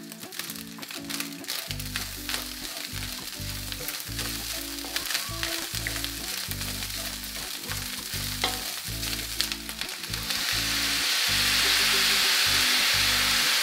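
Egg fried rice frying in a cast-iron skillet, with a wooden spatula clicking and scraping against the pan as it is stirred. About ten seconds in, soy sauce poured into the hot pan sets off a louder, steady sizzle.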